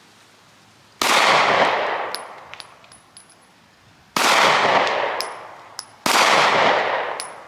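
Three 9mm pistol shots from a Glock 43X, the second about three seconds after the first and the third about two seconds later, each with a long echoing decay. Light metallic tinkles follow each shot, the spent brass casings landing.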